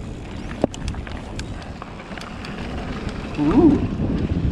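Mountain bike rolling fast down a dusty dirt trail: wind rushing over the microphone, tyres on dirt, and scattered ticks and rattles from the bike, with one sharp knock just under a second in.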